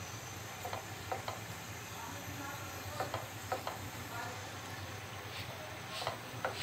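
Wooden spatula pressing and scraping a naan in a nonstick frying pan: a few short scrapes and taps, about a second in, around three seconds in and near the end, over a steady background hiss.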